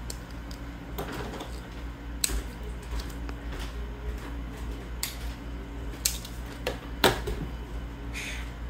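Scissors snipping a small piece of clear plastic: a few separate sharp clicks as the blades close, over a steady low hum. A short plastic rustle comes near the end.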